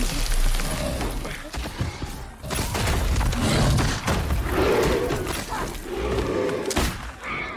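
Action-film battle sound mix: a low rumble broken by a few sudden booms and crashes.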